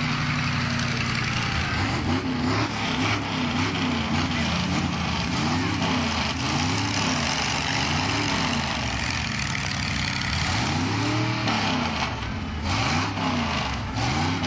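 Monster truck V8 engines with open headers idling. From about two seconds in, the throttle is blipped again and again, each rev rising and falling in pitch.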